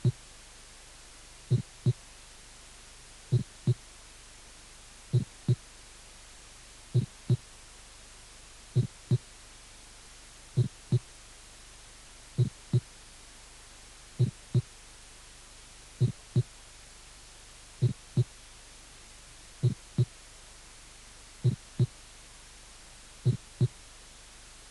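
Heart sounds from an auscultation teaching recording demonstrating an aortic systolic ejection click. A regular beat comes about every 1.8 s, each a pair of short dull thumps about a third of a second apart.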